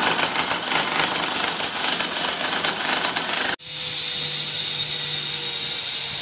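Electric chipping hammer hammering rapidly into concrete, chiselling out a channel for conduit; about three and a half seconds in it cuts abruptly to the steady whine of a handheld power cutter, such as an angle grinder, slicing a chase into a concrete block wall.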